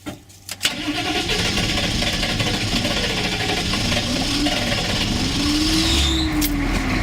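A couple of clicks, then a cold 6.2-litre Detroit diesel in a Chevy CUCV truck cranks on the starter for several seconds before catching near the end. It is slow to start.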